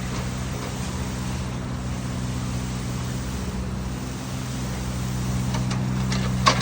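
Six-cylinder motor of a concrete pump running at a steady drone, driving the pump that pushes concrete through the hose. A sharp knock comes near the end.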